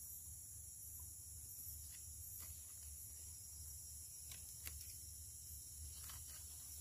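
Faint forest ambience: a steady high-pitched insect drone over a low hum, with a few scattered light clicks.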